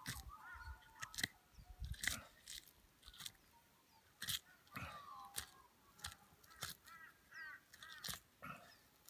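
Knife slicing a red deer's backstrap meat away from the backbone, with irregular faint wet snapping and tearing as the tissue parts. A bird chirps a few times in the background.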